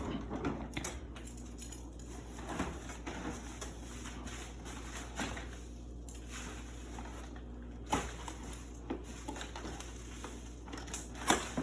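Packaging being handled as a ring light is unboxed: faint rustling of the box and its wrapping, with a few sharp clicks and knocks scattered through it.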